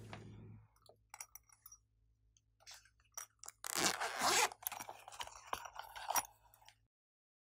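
Close-up crinkling, clicking and rustling of small plastic items and packaging being handled, loudest as a dense crunchy rustle about four seconds in; the sound cuts off suddenly near the end.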